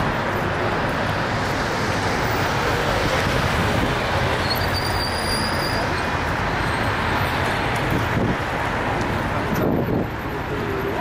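Steady vehicle noise, an even drone without pauses.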